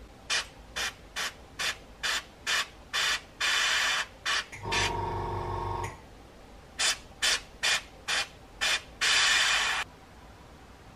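Airbrush spraying in short puffs of hissing air, about two a second, each run ending with a longer spray of under a second. A small motor hums for about a second between the two runs.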